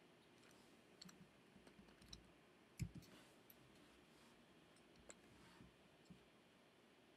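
Faint, scattered computer mouse clicks while drawing in CAD software, with one louder click and knock a little under three seconds in.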